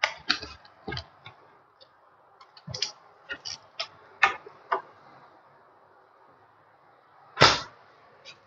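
Stainless steel double-door refrigerator being opened and handled: a scatter of light clicks and knocks from the handles, latches and door bins, then one loud thump about seven seconds in as a door is shut.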